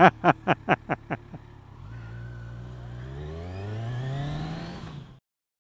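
Motorcycle engine pulling away, its note rising steadily as it accelerates, then easing off and cutting out suddenly near the end. It opens with a quick run of short pitched sounds, about five a second, fading out over the first second and a half.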